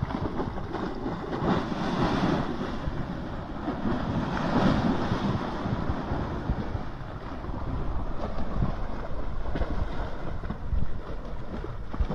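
Muddy Indus floodwater rushing and churning in a steady roar, with wind buffeting the microphone.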